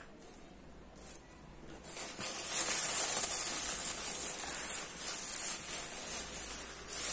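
A plastic bag of potting soil rustling and crinkling as it is pulled about inside a plastic bucket, starting about two seconds in and going on steadily after that.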